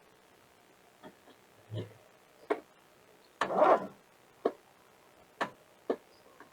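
A series of short, irregular clicks and knocks, about eight in all, with one longer scraping, rustling noise lasting about half a second a little past the middle, the loudest sound.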